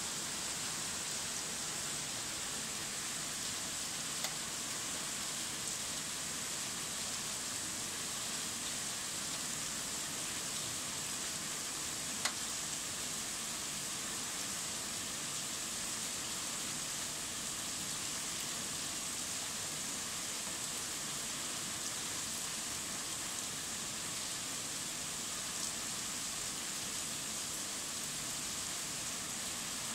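Steady rain falling on a wet asphalt courtyard: an even hiss, with two faint sharp ticks about four and twelve seconds in.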